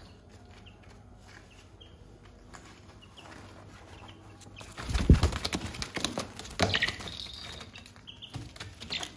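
Young chickens scuffling and flapping their wings close by, loudest in a run of bursts about five seconds in, with a few short chirps between.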